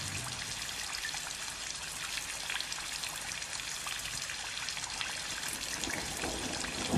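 Rain falling: a steady hiss dotted with the ticks of single drops, with a brief louder thump at the very end.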